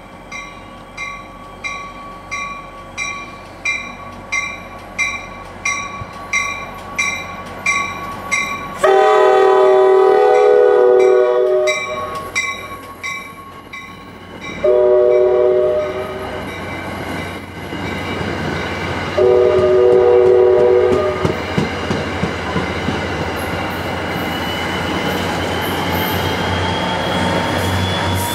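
Grade-crossing bells ringing about twice a second as an NJ Transit passenger train sounds its horn three times, long, short, long, then rolls through the station with a steady rumble of wheels on rail. A slowly rising whine builds near the end.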